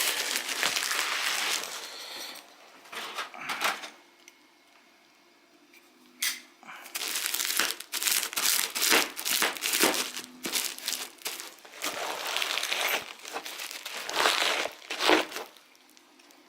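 A parcel being unwrapped by hand: packaging crinkling and tearing, with sharp crackles. It pauses for about two seconds around four seconds in, then starts again.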